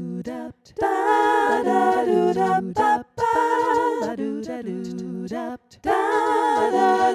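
Voices singing a cappella, an unaccompanied sung intro tune in short phrases broken by brief pauses about half a second, three seconds and five and a half seconds in.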